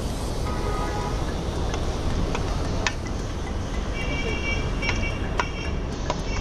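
Steady low rumble of roadside traffic and open air, with a few sharp clicks of a spoon against a steel plate and faint high tones about four seconds in.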